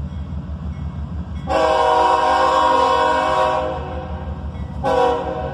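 Approaching CSX diesel locomotive sounding its multi-chime air horn: one long blast, then a shorter one starting near the end. The locomotive's diesel engine rumbles steadily underneath.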